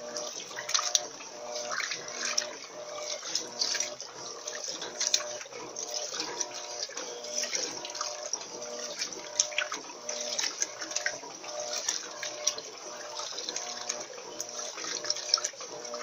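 Electrolux LT13B 13 kg top-loading washing machine agitating a load in soapy water: water churning and splashing continuously over the motor's hum, which comes and goes in short repeated strokes as the agitator swings back and forth.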